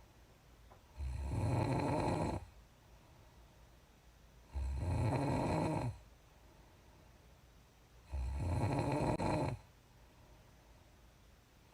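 A woman snoring with lip puffs, her lips flapping with the breath. Three snores come about three and a half seconds apart, each lasting about a second and a half.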